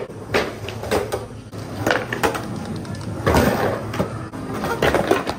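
Skateboard on Independent Stage 4 trucks rolling over concrete, with a series of sharp clacks and knocks as the board's tail, wheels and trucks strike the ground and curb, and a rougher scraping rush about three seconds in.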